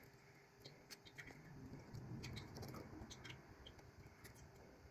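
Faint small metallic clicks and scratching of a lock pick working the pins inside a Goal D9 three-row pin-tumbler lock, irregular ticks scattered through.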